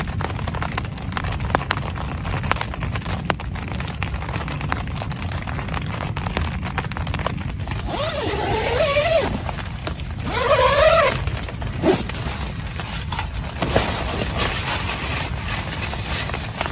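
Steady heavy rain with a low rumble and many drops ticking on a tent. Twice, about eight and ten seconds in, a brief louder wavering sound rises over the rain.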